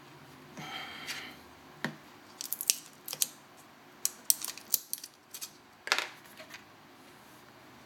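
Small metal tools and tiny phone parts clicking and tapping during iPhone 4S reassembly: a brief pitched scrape about half a second in, then a dozen or so sharp ticks in quick clusters.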